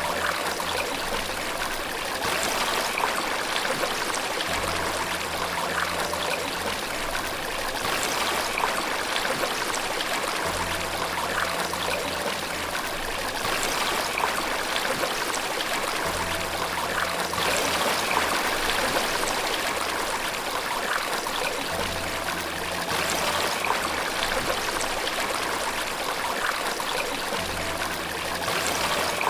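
Running water flowing steadily with a constant rush and trickle. A faint low tone comes and goes underneath about every five to six seconds.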